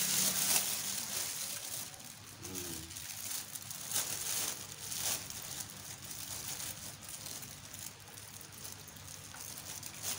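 Thin plastic bag rustling and crinkling in irregular bursts as it is gathered and tied tight around the base of a plant pot.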